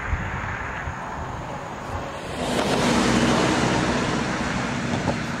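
A car passing close by on the road, its tyre and engine noise swelling about two seconds in, over wind rumble on the microphone.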